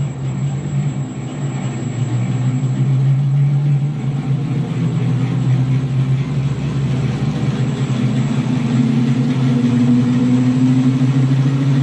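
A 4 kW electric motor on a variable-frequency drive spins a scooter wheel up through a chain drive. The steady machine hum grows slowly louder, and its pitch rises a little near the end as the speed is stepped up.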